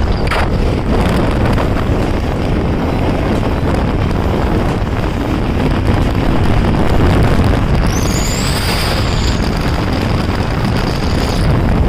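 Motorcycles riding at speed: steady engine and exhaust noise mixed with heavy wind buffeting on the microphone.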